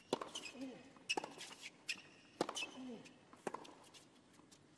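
Tennis rally on a hard court: ball struck with a racquet about once a second, four hits in all. Shoe squeaks on the court come with the hits, and a player grunts with every other shot.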